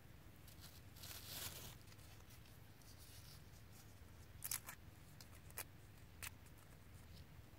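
Faint handling sounds as leaves are placed by hand into a stone mortar: a brief rustle about a second in, then a few light, sharp clicks in the second half, over a faint low steady hum.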